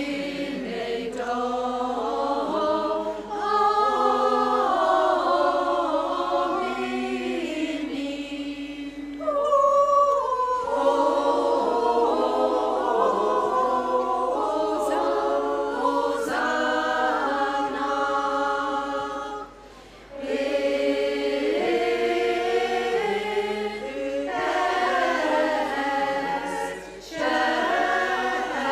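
Small women's choir singing a cappella in several-part harmony, in sung phrases separated by brief breaks, the clearest about twenty seconds in.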